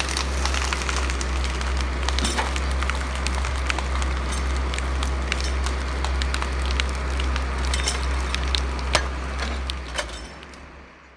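Heavy logging machinery running with a steady low rumble, with frequent sharp cracks and snaps of wood and branches; it fades out near the end.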